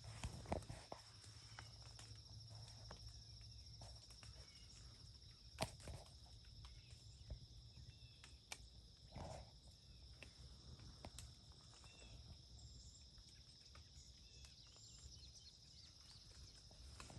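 Faint, steady high trill of an insect chorus, with a few scattered small clicks and rustles. The sharpest click comes about five and a half seconds in.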